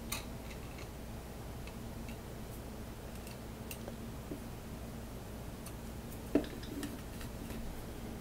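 Faint clicks and taps of an Allen key working the set screws of a metal shaft coupler on a 3D-printed plastic Z-axis assembly, with one sharper knock about six seconds in, over a steady low hum.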